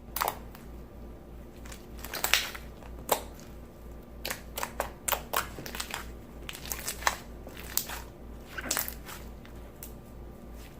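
Hands squeezing and poking a jiggly clear-glue slime, giving irregular wet pops, clicks and crackles at uneven intervals.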